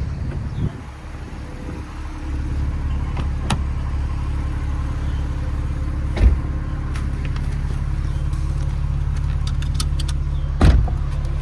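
2019 Porsche 911 Targa 4S's twin-turbo flat-six idling steadily. Sharp thumps come about six seconds in and again near the end as someone opens the passenger door and climbs in.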